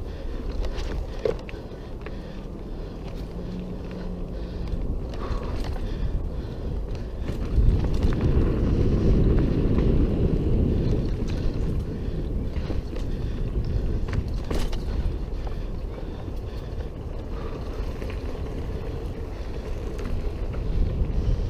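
Mountain bike riding fast down a dirt forest trail: a steady low rumble of tyres on dirt and air rushing past the camera, with the bike rattling and a few sharp knocks over bumps. Loudest a third of the way in.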